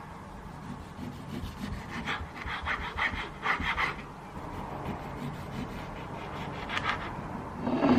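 A chef's knife slicing a tomato on a wooden cutting board: short sawing strokes through the skin with the blade knocking on the board. The strokes come in a quick run of about four a second around the middle, with one more cut later. A louder, brief noise comes right at the end.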